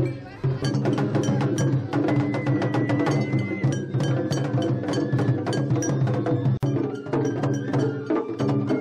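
Japanese festival hayashi played on the move: rapid, dense clanging of a small metal hand gong over taiko drumming, with a bamboo flute holding high notes in between.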